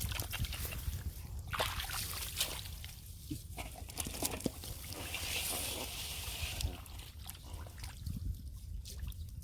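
Shallow water sloshing and splashing in short, irregular strokes, with a steadier hiss for about a second and a half midway.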